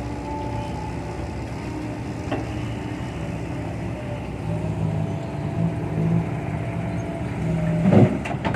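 Kobelco SK120-5 hydraulic excavator's diesel engine running, with held hydraulic whining tones that drift slowly in pitch as it works. The engine grows louder about halfway through, and there is a louder burst near the end.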